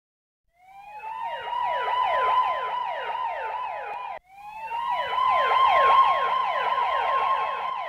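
Electronic siren-like wail: a steady tone that rises into place, with rapid falling chirps laid over it about three times a second. It cuts off abruptly just after four seconds in and starts again.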